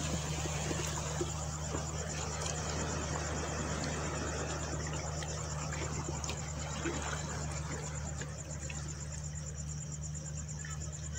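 Insects chirping in a steady, fast-pulsing high trill, over a low steady hum.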